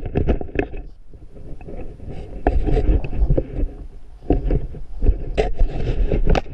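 Handling noise from a backpack-mounted camera as the pack is jostled and moved: irregular knocks, scrapes and fabric rustling, with wind buffeting the microphone underneath.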